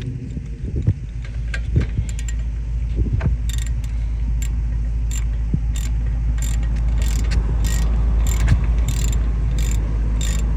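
Hand ratchet clicking as it is swung back and forth, tightening the 15mm bolts of a truck's front hub bearing, about two clicks a second over a steady low rumble.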